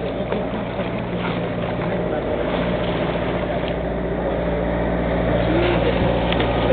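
A sailing yacht's inboard engine running steadily while the boat motors along, with water rushing past the hull and wind noise.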